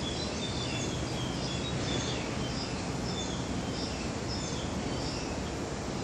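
A pair of small black birds chirping, a quick scatter of short high chirps that the uploader takes for a male courting his mate. Steady background noise runs underneath.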